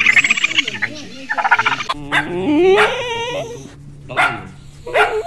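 A raccoon's rapid trilling chitter, then a puppy whining in a long, wavering, rising whine followed by two short yips.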